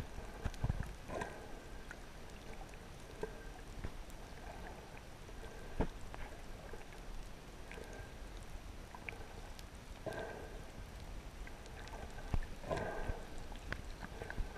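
Muffled underwater sound as picked up by a camera just below the surface: a soft rushing sound that comes back every two to three seconds, with a few scattered sharp clicks.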